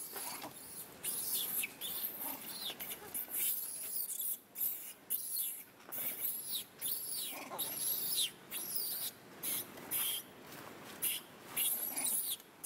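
Baby long-tailed macaque screaming and squealing in distress: a rapid string of high-pitched, rising-and-falling cries, typical of an infant being roughly handled by an adult.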